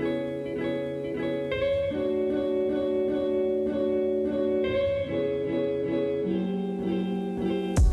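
Instrumental background music: a plucked-string melody over held chords.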